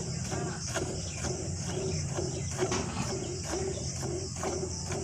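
Cow being hand-milked: milk squirting into a pail in an even rhythm of about two strokes a second, over a steady low hum.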